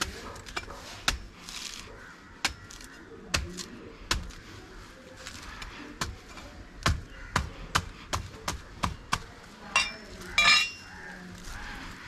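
A blade chopping into a coconut: a series of sharp, irregular chops, about fifteen strikes, the loudest near the end.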